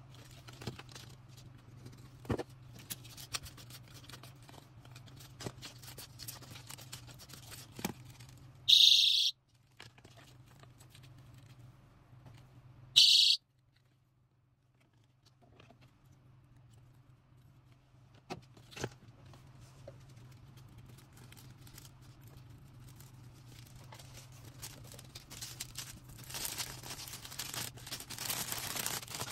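Personal safety alarm keychain sounding in two short, high-pitched blasts about four seconds apart, the loudest sounds here. Between them, light clicks and handling of packing materials, with plastic crinkling growing near the end.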